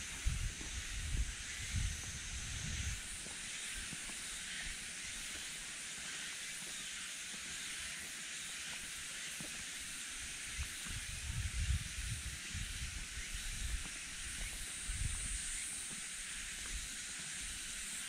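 Steady high-pitched hiss of forest ambience under the trees, with irregular low rumbles near the start, again about two thirds of the way through, and once more near the end.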